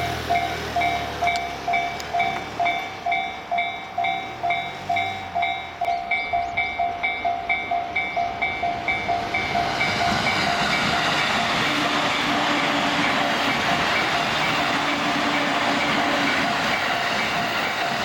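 Japanese level-crossing warning bells ringing, a quick repeating ding about two to three times a second. From about ten seconds in, the noise of a JR East electric commuter train passing over the crossing rises and drowns most of the bells.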